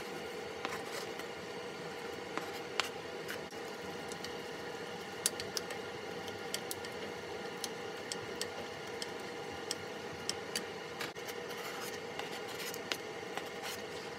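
Chopped onion and green chili sizzling as they fry in a pot, a steady sizzle with many sharp crackling pops, and a wooden spoon scraping the bottom as they are stirred.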